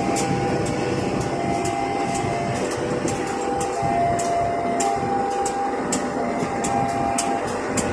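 KAI diesel-electric locomotive running as it moves slowly past during shunting: a steady engine rumble with a few whining tones that shift in pitch, and irregular sharp high clicks two or three times a second.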